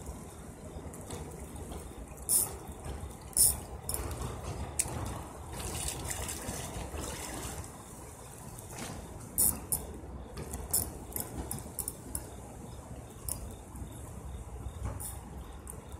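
River water lapping and splashing at the shoreline, with a few sharper slaps standing out above the steady wash, the loudest a few seconds in and again about halfway through.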